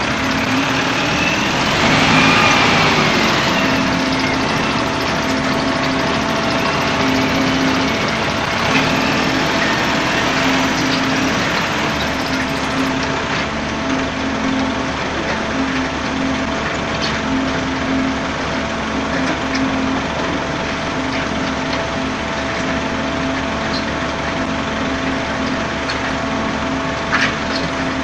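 Concrete mixer pump's engine running steadily with a pulsing drone. There is a brief rising-and-falling whine about two seconds in and a sharp knock near the end.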